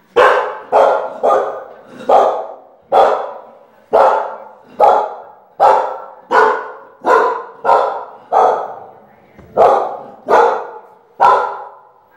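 A dog barking repeatedly, about fifteen sharp barks at a steady pace of roughly one every two thirds of a second. These are alarm barks aimed up a dark staircase, as if something were coming from upstairs.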